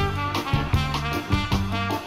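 Background music: an upbeat swing tune with a steady beat.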